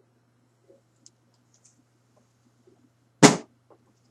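Plastic action figure being handled and set down on a hard surface: a few faint clicks, then one sharp knock about three seconds in.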